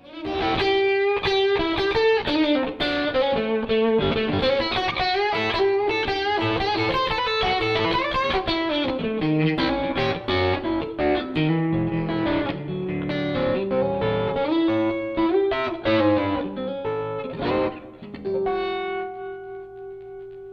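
Electric guitar, a Stratocaster played through a Flex15 single-ended amp into a 2x12 cabinet: a run of blues licks with many quickly picked notes, ending on a chord left ringing for the last couple of seconds.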